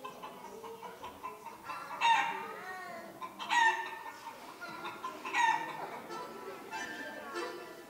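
Chicken sounds, crowing and clucking, over quiet music: three loud calls about a second and a half apart, each falling in pitch at its end.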